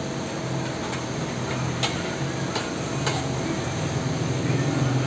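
Long knife chopping and scraping food filling on a flat steel griddle, with a few sharp metal clicks around two to three seconds in, over the steady sizzle of frying.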